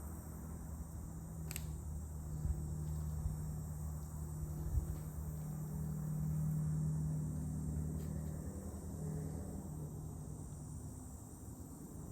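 Steady high chirring of crickets over a low, steady hum that swells in the middle, with a few faint clicks from handling small plastic connector parts.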